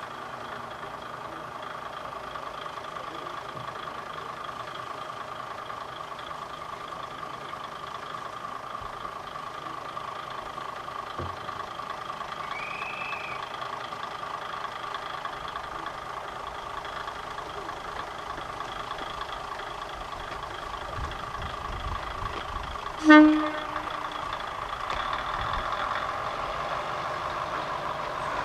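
Kominato Railway KiHa 200 diesel railcar idling with a steady engine hum. About two-thirds of the way through it gives one short horn blast, and the engine then grows a little louder as the railcar starts to pull away.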